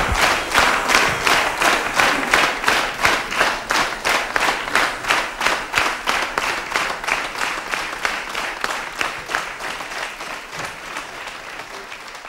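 Audience applauding in unison, rhythmic clapping at about three claps a second, gradually fading away.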